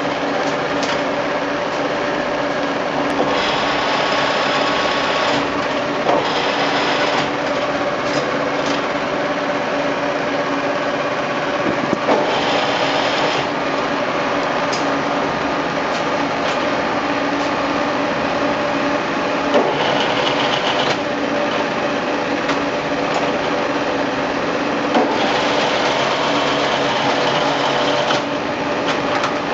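Huron NU3 milling machine running under power, its motor and drive giving a steady mechanical whine. A higher hiss comes and goes several times over it.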